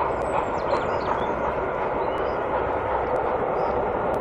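Steady rumble of a distant train's passenger coaches running past, with faint bird chirps above it.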